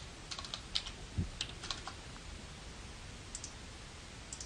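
Computer keyboard keys tapped in a quick run of several keystrokes over the first two seconds, then a couple of single clicks near the end.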